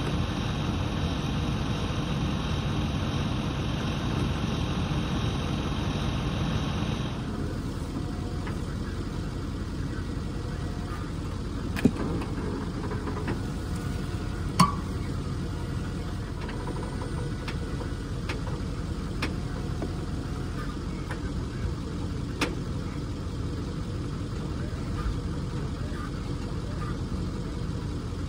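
Engine of a hive-moving loader running steadily, with a few sharp knocks as pallets of hive boxes are handled, two around the middle and one later. The first seven seconds are louder and denser than the rest.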